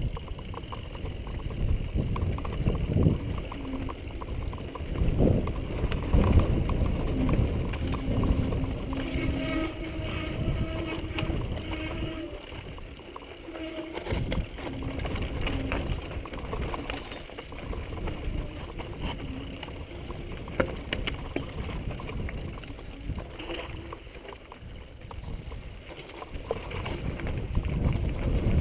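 Mountain bike riding down a rocky singletrack. Tyres rumble and crunch over loose stones, the bike rattles with many small knocks and clicks, and wind rumbles on the camera microphone.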